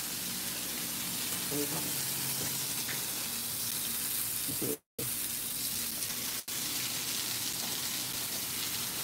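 Pork chops searing in oil in a cast-iron skillet: a steady frying sizzle. The sound cuts out completely for a moment about five seconds in.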